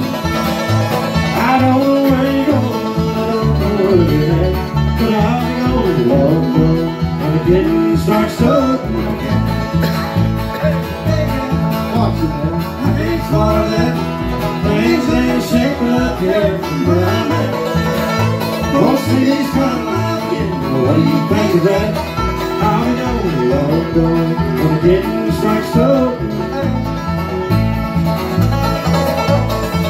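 Bluegrass band playing an instrumental break: a fiddle carries the melody over strummed acoustic guitar, banjo and an upright bass walking low notes in a steady beat.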